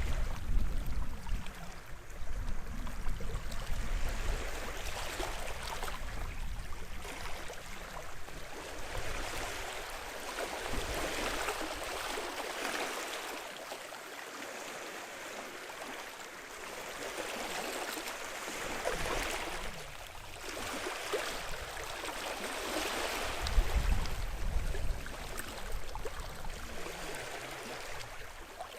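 Small waves washing and lapping onto the shore of a sheltered bay, swelling and easing every few seconds, with a heavier low rumble near the start and again about three quarters of the way through.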